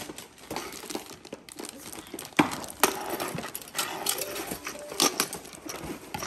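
Plastic toys being handled and set down on a tile floor: a scatter of clicks and taps, with a few sharper knocks.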